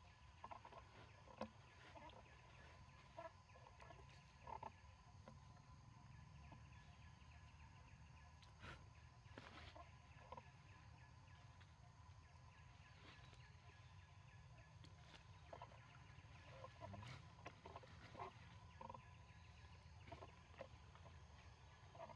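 Near silence: faint forest ambience with a low rumble and scattered soft clicks and rustles.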